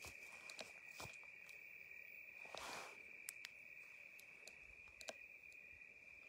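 Faint steady high-pitched trill of crickets, with scattered soft clicks and crunches on dry ground and a brief rustle about two and a half seconds in.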